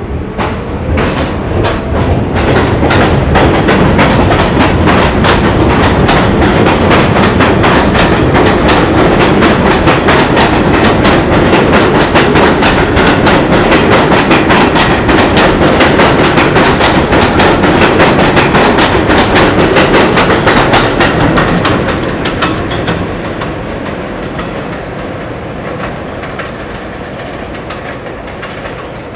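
R46 subway train accelerating out of an elevated station, its wheels clattering over the rail joints in rapid clicks as the cars pass close by. The sound fades steadily over the last several seconds as the train pulls away down the line.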